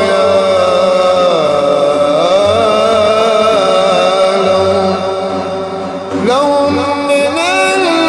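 Devotional chanting by a solo voice in long, melismatic held notes that slide up and down, with a short dip about six seconds in before the line resumes.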